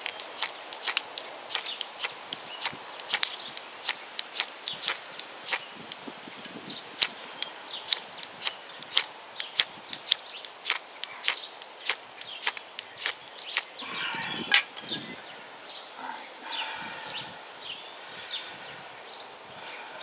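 Ferro rod scraped over and over with a steel striker, about two sharp rasping strikes a second, throwing sparks onto palm-fibre tinder. The strikes stop about two-thirds of the way through.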